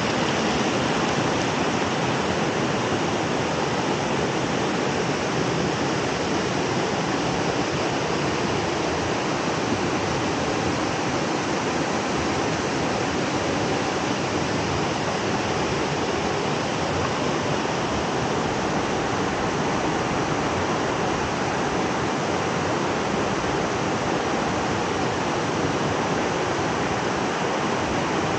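Steady rush of creek water pouring over small rock cascades and a low waterfall into a shallow pool, an even, unchanging noise.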